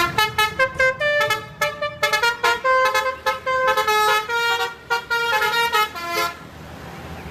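A multi-tone 'telolet' bus horn playing a quick melody of short, stepped notes. It stops about six and a half seconds in.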